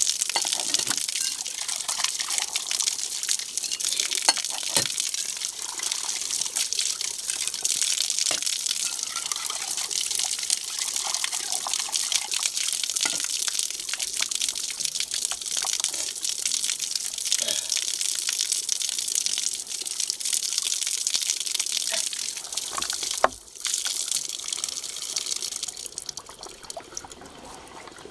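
Water gushing from an outdoor tap onto a concrete slab while steel cups and bowls are rinsed under it, with occasional clinks of metal on metal. The flow falls away near the end.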